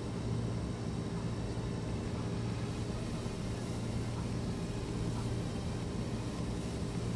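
Steady low hum with a faint even hiss: background room and microphone noise, with nothing else happening.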